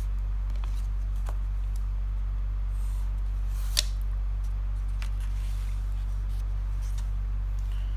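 Steady low hum with a few faint clicks from a marker and a sheet of paper being handled on a desk, and one sharper click about four seconds in.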